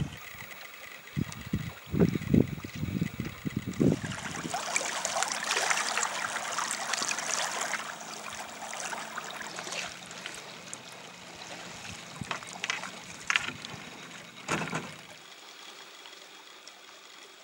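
Lake water lapping and slapping against a kayak hull. Heavy low slaps come in the first four seconds, then a steady hiss of small waves with scattered splashes.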